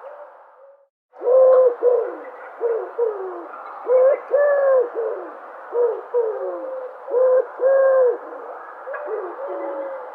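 Dove cooing in repeated phrases of short, low, hollow notes, each rising then falling away, over steady background ambience. The sound drops out completely for a moment about a second in, then the calls start.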